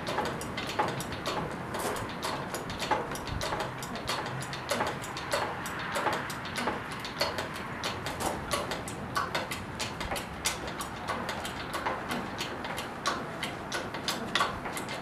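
Hydraulic engine hoist being pumped by its handle, clicking at about two strokes a second as it lifts a heavy load.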